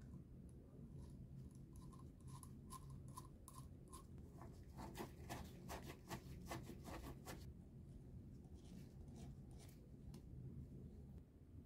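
Faint metal ticks and scrapes from a flat-blade screwdriver working a part inside the metal barrel of a pen gun during reassembly. A slow run of light ticks comes first, then a quicker burst of clicks around the middle, over a steady low hum.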